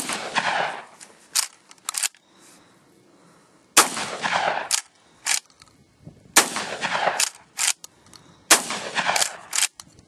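Stevens 320 12-gauge pump-action shotgun fired four times, two to three seconds apart, each shot echoing for about a second. Between shots the pump is racked, two short clacks each time.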